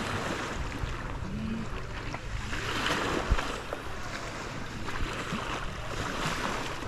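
Wind and surf: a steady rushing noise that swells up twice, over a low steady hum, with a single sharp knock about halfway through.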